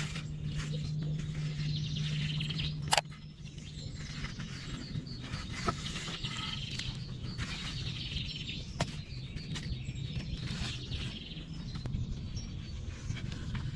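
Small birds chirping, with scattered clicks and one sharp knock about three seconds in, over a low steady hum.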